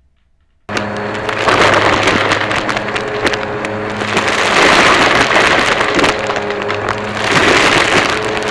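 Vacmaster vacuum cleaner switched on less than a second in, its motor then running steadily with a low hum and a loud rush of air that swells and eases about three times as it is worked.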